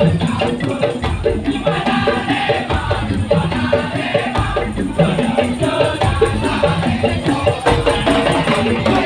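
Madurese tong-tong ensemble playing: a fast, steady rhythm of short pitched wooden and bamboo percussion notes over low drum beats, with rattling shakers.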